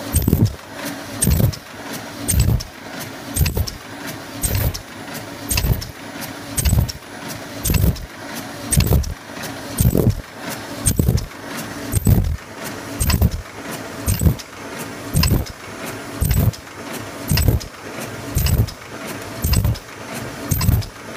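Pyramid tea bag tagging machine running: a thump with sharp clicks about once a second, one per machine cycle as a string and tag are fixed to the mesh film, over a steady machine hum.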